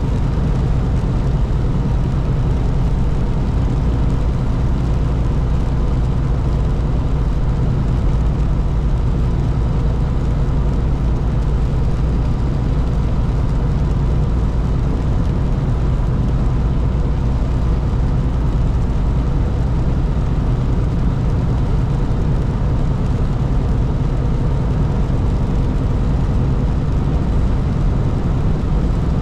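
Steady drone of a truck's engine and tyres on a wet highway, heard from inside the cab, with a low rumble and a few faint steady hums above it.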